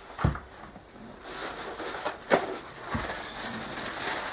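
Blue paper towel rustling as a greasy brake caliper bolt is wiped clean by hand, with a few light knocks of handling.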